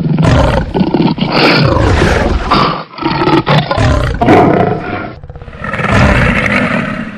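Big cats roaring and growling in a quick run of short clips cut together, loud and rough throughout, with a brief dip about five seconds in before the calls resume.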